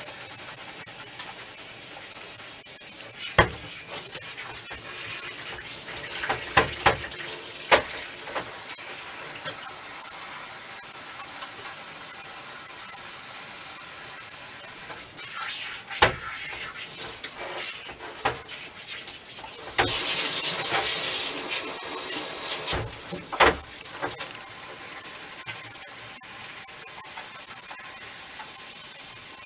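Water running steadily from a bathtub tap during a dog's bath, with scattered knocks against the tub as the dog is lathered by hand. A louder burst of splashing comes about twenty seconds in.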